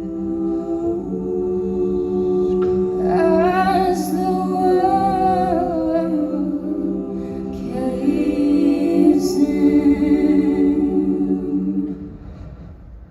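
A cappella vocal group singing sustained chords over a steady low held note, with a higher solo voice soaring above about three seconds in and again later. The chord trails off near the end.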